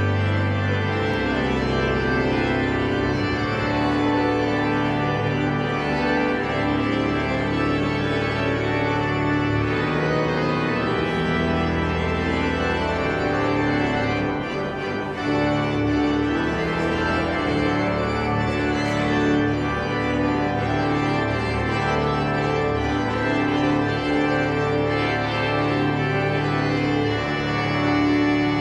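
Organ playing full, held chords over a bass line that moves every second or two.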